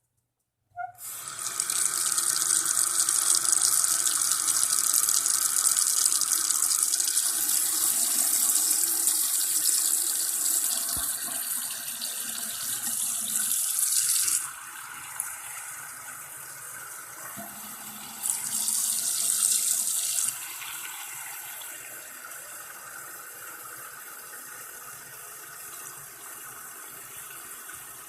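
Tap water running into a sink, turned on about a second in. It runs strong for about half the time, drops to a softer flow, surges briefly again about two-thirds of the way through, then settles back to the softer flow.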